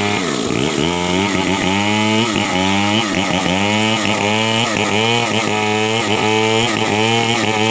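Chainsaw engine running under load, its pitch dipping and rising about twice a second.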